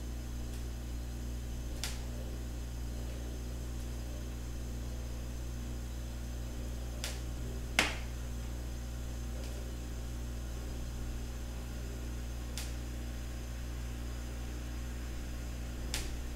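Steady low electrical hum with faint room noise, broken by five short, faint clicks, the loudest about eight seconds in.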